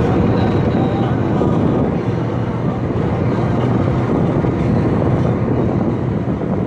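Toyota Premio car driving on a highway at over 160 km/h: a steady, dense rumble of running noise, heaviest in the low end.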